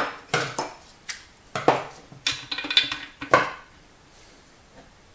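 Metal tools and small engine parts clinking and knocking as they are handled on the workbench: a quick run of sharp clinks over the first three and a half seconds.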